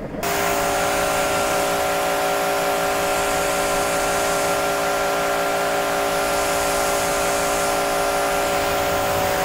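Pressure washer running steadily, its motor humming under the hiss of the water jet as it sprays the motorcycle to test the water repellency of a freshly applied coating. It starts about a quarter second in.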